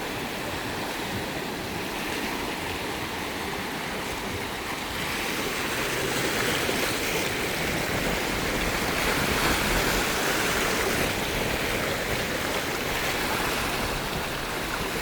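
Sea surf: waves washing in and breaking on the shore, a continuous rushing noise that swells and eases slowly, loudest near the middle.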